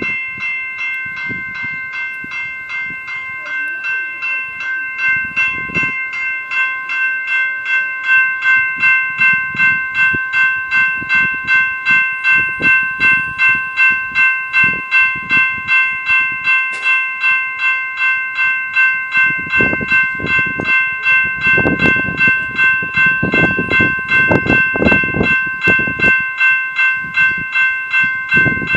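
Electronic warning bell of a railroad crossing signal ringing with rapid, even strokes, the warning that a train is approaching. It gets louder about eight seconds in, and a low rumbling noise sits under it from about twenty seconds in.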